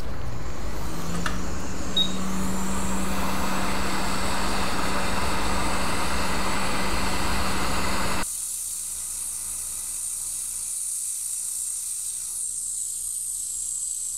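Hot air rework station blowing a steady rush of air with a low hum onto a flux-covered chip to lift it off the board. About eight seconds in it drops abruptly to a fainter, higher hiss.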